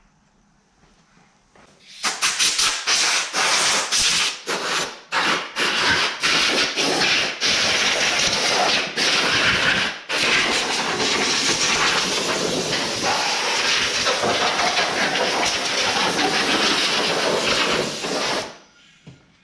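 Loud hissing that starts about two seconds in, sputters on and off at first, then runs steadily and cuts off near the end, like air or spray escaping under pressure.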